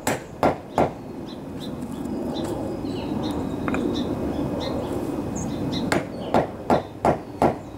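Rubber mallet striking a new bushing into the hub of a riding lawn tractor's front wheel: three quick blows at the start, then five more near the end, driving the bushing down until it is fully seated. Birds chirp faintly in the pause between.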